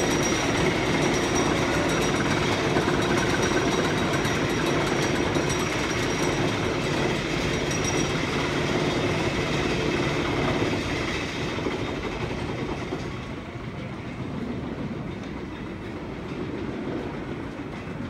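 Outlaw Run wooden roller coaster train running along its track, a steady loud noise of wheels on track with a thin high whine. It dies down about two-thirds of the way through.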